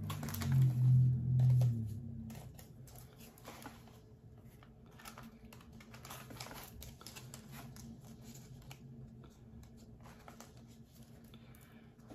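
Plastic cards and a small card case being handled: scattered light clicks, taps and rustles as the cards are taken out and slid into the case. A low hum is loudest in the first two seconds.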